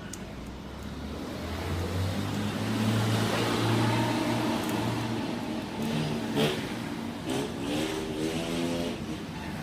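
Rusi RFI 175 motorcycle engine running and being revved: the pitch climbs over the first few seconds, then settles and wavers lower.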